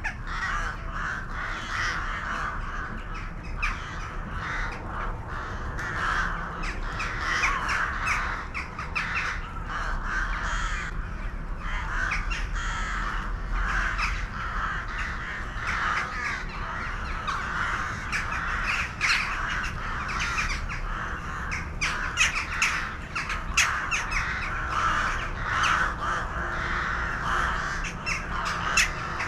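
A flock of birds calling all at once, a dense, unbroken chatter of many overlapping short calls.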